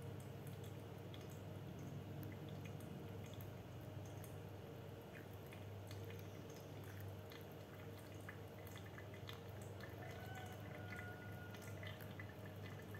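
Gooseneck kettle pouring a thin stream of water onto the wet coffee grounds in a V60 dripper: a faint, steady trickle with small dripping ticks, over a low steady hum.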